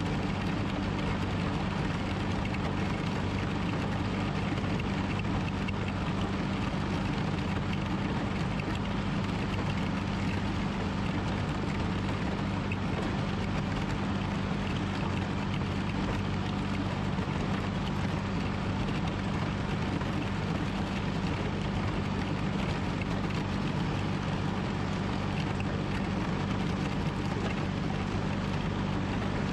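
John Deere 420 garden tractor's air-cooled two-cylinder Onan engine running steadily under load as the tractor pushes a front plow blade through snow, with a steady low hum.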